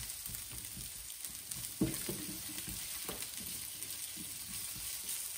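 Onions, green chillies and ginger sizzling softly as they sauté in a nonstick frying pan, stirred with a silicone spatula that knocks against the pan a few times, most sharply a little under two seconds in. The onions are being softened, not browned, for a tadka.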